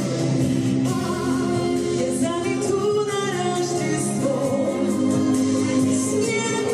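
A song with singing voices over instrumental backing.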